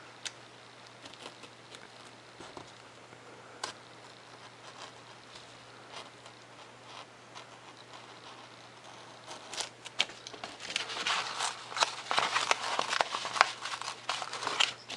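Razor knife cutting thin Depron foam along a paper template, with faint scratching and occasional small clicks. In the last five seconds or so it turns into louder, denser scraping and crackling as the cut foam and paper are worked free.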